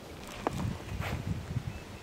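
Wind rumbling on the microphone, with two light knocks about half a second and a second in.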